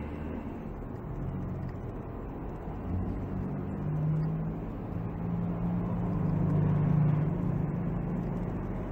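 A low mechanical hum over a steady noisy rush, swelling louder midway and easing off near the end.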